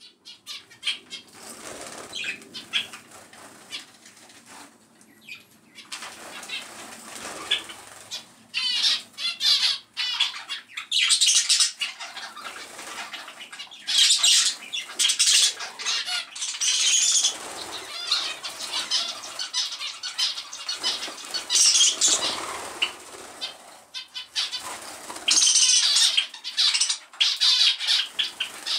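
Small aviary finches (zebra finches and Java sparrows) flapping their wings in quick, uneven bursts as they flutter up, land and take off, with short bird calls in between.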